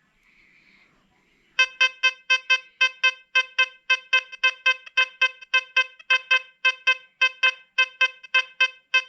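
XP Deus 2 metal detector sounding its target tone for a modern nickel swept past the coil. The buzzy, mid-pitched beep repeats about four times a second, starting about a second and a half in, and tells the detectorist that a nickel is under the coil.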